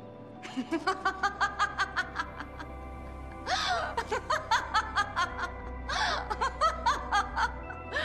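A woman laughing in a long run of short, rapid 'ha' pulses, about four a second, starting about half a second in, with louder bursts near the middle and again later. Music with sustained, held tones plays underneath.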